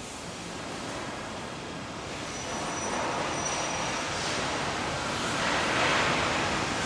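Steady rushing noise of a vehicle in motion, growing gradually louder.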